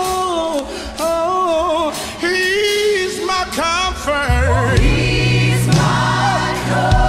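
Choir singing a gospel song, the voices in harmony and unaccompanied at first, with a bass line coming in a little after four seconds in.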